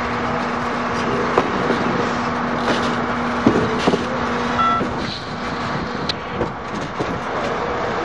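Steel heavyweight passenger coaches rolling slowly past, their wheels and trucks giving irregular clunks and clicks over the rail joints, with a brief squeal near the middle. A steady low hum runs underneath and fades about two-thirds of the way through.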